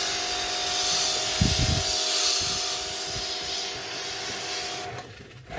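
High-pressure water spray hissing steadily over the steady hum of its pump, washing a washing machine's rubber sleeve clean; a low thump about a second and a half in, and the spray cuts off near the end.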